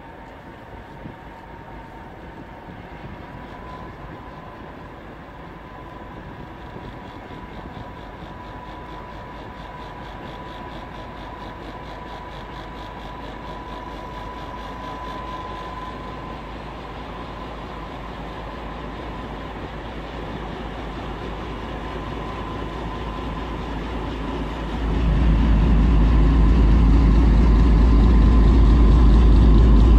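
A train approaching along the line, its sound growing slowly louder, with a steady high tone. About 25 seconds in it suddenly becomes much louder, with a heavy low rumble, as it comes close.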